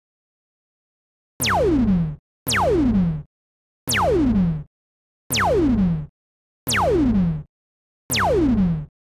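Synthesized sci-fi gun zap sound effect fired six times, each shot a fast downward-sweeping pitch lasting under a second, separated by short silences.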